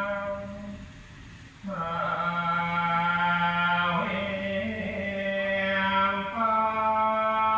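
A male voice chants in long held notes that step between a few pitches. It drops away briefly about a second and a half in, then carries on. This is typical of Buddhist funeral chanting heard at a Thai wat.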